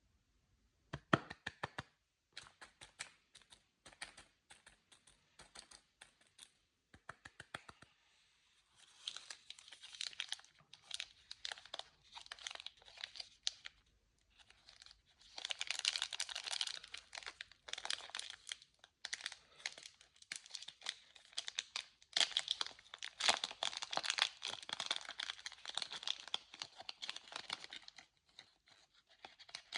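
Candy packaging being handled close to the microphone: a run of sharp separate clicks for about the first eight seconds, then plastic wrappers crinkling and tearing open in clusters, with short pauses.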